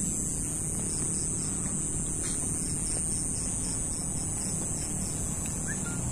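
Night insects: a steady high-pitched buzz with a second insect chirping evenly about two or three times a second, over a low rumble.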